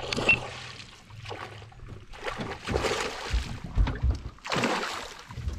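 Water sloshing and splashing against a small fishing boat, with a few low thumps and knocks around the middle.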